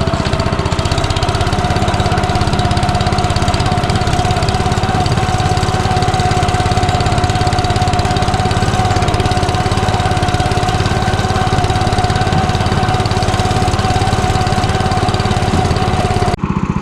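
Small engine of a walk-behind tractor running at a steady speed with an even firing rhythm. It cuts off suddenly near the end.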